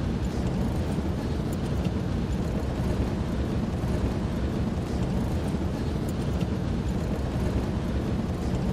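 A vehicle driving across open desert, a steady low engine and road rumble.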